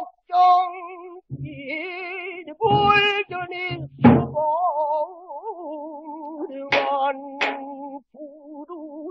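Pansori singing: one voice holding long notes with wide, wavering vibrato, accompanied by sharp strikes on the buk barrel drum. The strikes fall irregularly, several between about one and four seconds in and two more near seven seconds.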